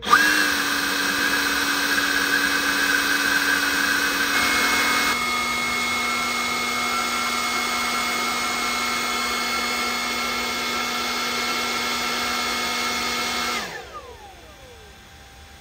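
Cordless battery blower running at a steady whine, blowing air over a drag bike's engine and radiator to cool it down. Its pitch steps slightly lower about five seconds in. It is switched off near the end and whines down as it slows.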